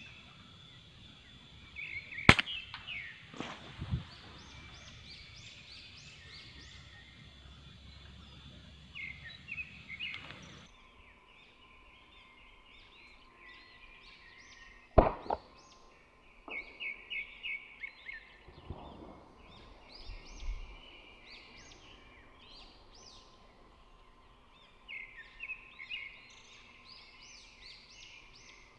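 Small birds chirping in short repeated runs of high calls among the trees. Two sharp clicks stand out, about 2 seconds and 15 seconds in.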